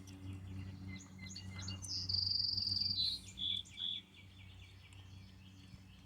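A songbird singing: a run of quick high notes, a buzzy trill held for about a second, then two short clear notes, over a faint low steady hum.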